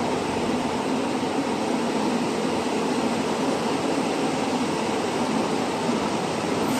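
Steady whirring noise of running machinery, even and unbroken, with no distinct knocks or clicks.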